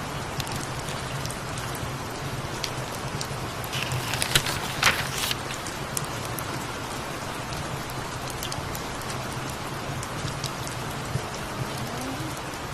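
Steady rain falling, over a low steady hum, with a short cluster of crackles about four to five seconds in.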